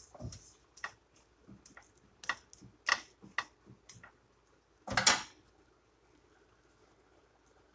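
Metal slotted spatula clicking and tapping against a flat griddle pan several times, then one louder scrape against the pan about five seconds in.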